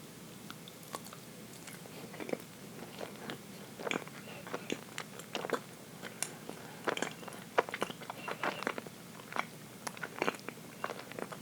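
Close-up mouth sounds of a person chewing dense chocolate cake: quiet for the first two seconds, then many short, irregular clicks and smacks.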